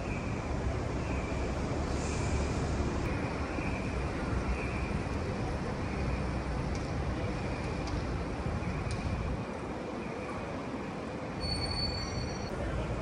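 Steady city traffic noise: a low rumble of buses and other vehicles under a constant hiss, the rumble easing for a moment about ten seconds in. A few brief high tones sound near the end.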